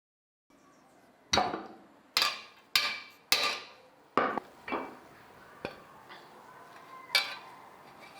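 Metal striking metal: about eight sharp knocks at uneven intervals, each ringing briefly, the first four loudest and the rest fading off.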